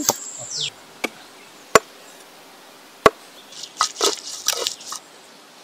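Stone roller knocking and crushing onions and chillies on a flat grinding stone: a few separate sharp knocks, then a quick run of crunching, scraping strikes about three and a half to five seconds in.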